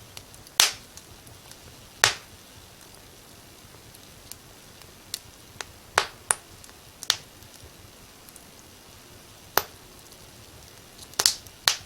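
Firewood burning in a fireplace, crackling: about a dozen sharp, irregular pops over a faint steady hiss.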